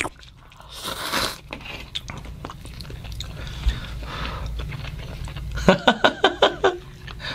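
Instant hot pot noodles being slurped and chewed. There is a loud slurp about a second in, then quieter chewing, then a quick run of rapid slurping pulses near the end.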